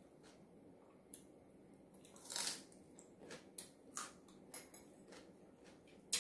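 Raw winged bean pod being bitten and chewed: scattered crisp crunches, with a sharp click near the end.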